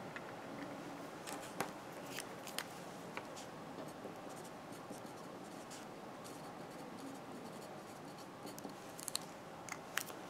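A pen writing on paper: faint scratching with small scattered ticks from the tip, over a steady low room hiss.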